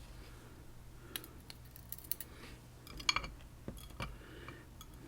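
Faint small metallic clicks and light tinkling of tiny lock pins and springs being handled as a pin-tumbler padlock core is taken apart, with a short cluster of ringing metal clicks about three seconds in and another click a second later.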